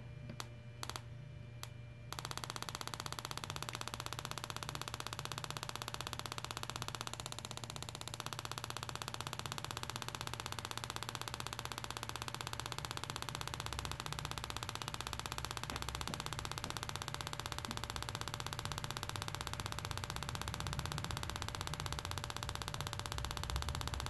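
A few clicks as a connector is pushed onto a motorcycle stick ignition coil, then, about two seconds in, the coil on its test jig starts firing its spark plug rapidly: a steady, fast, even crackle of sparks that holds to the end.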